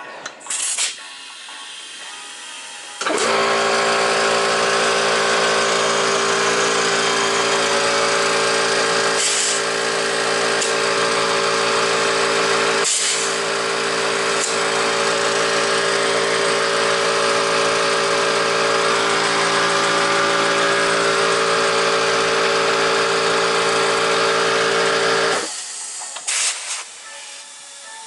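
Air compressor starting up about three seconds in and running steadily with a hum and hiss, refilling its tank after air was drawn to inflate the tube, then shutting off about three seconds before the end.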